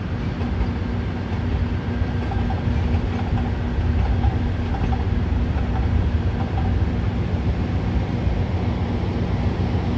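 LA Metro AnsaldoBreda P2550 light rail train rolling past on its elevated track, a steady rumble of wheels on rail over a constant low hum.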